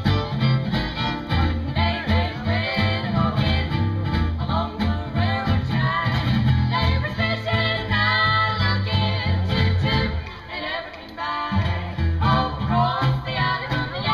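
Live country music: a band with bass and guitar playing behind a singer. The bass drops out briefly about ten seconds in.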